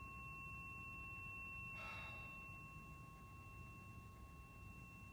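Tuning fork, struck on a rubber activator puck just before, ringing on faintly with two steady high tones. About two seconds in, a person breathes out audibly.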